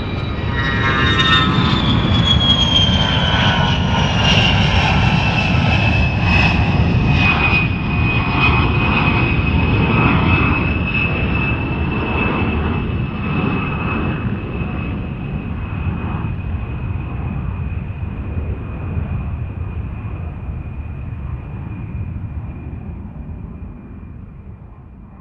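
Jet aircraft passing by: a high engine whine glides down in pitch over the first several seconds as it goes past, over a broad low rumble. The sound is loudest in the first ten seconds and then fades slowly away.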